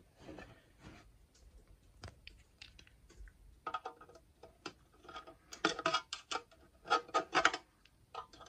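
Small screwdriver scratching and picking at the tamper-evident warranty sticker across the seam of a Hondata K Pro ECU's metal case: scattered scrapes and ticks, coming in short bunches in the second half.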